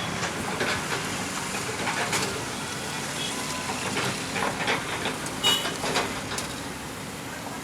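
Construction site and road traffic: a steady rumble of machinery and vehicles with scattered short metallic knocks and clanks, and a brief high squeal about five and a half seconds in.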